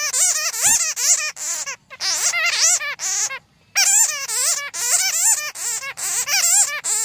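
Bats chattering: a dense run of rapid, high squeaky calls that bend up and down in pitch, with brief breaks about two seconds in and again about three and a half seconds in.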